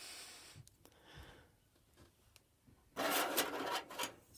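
Rubbing and scraping as layers of a fan motor part are worked loose and slid off. There is a short scrape at the start, and a louder one lasting about a second comes about three seconds in.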